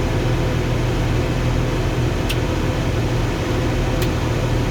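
John Deere 710D backhoe's diesel engine running steadily, heard from inside the cab with the air-conditioning blower hissing. Two light clicks come about two and four seconds in.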